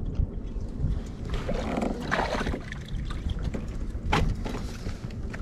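Knocks, rumble and rustling of movement on a fishing kayak, picked up through the hull by a camera lying on the deck, with a sharp knock about four seconds in.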